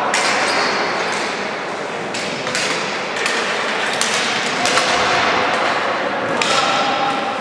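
Ball hockey play: plastic sticks clacking on the ball and the concrete floor and the ball knocking off the boards, a scatter of sharp, irregular clicks and knocks, over a steady din of voices in a reverberant hall.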